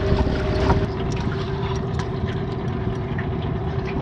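Outboard motor running steadily with a constant hum as the boat is driven along to chase a hooked fish, with wind and water noise over it.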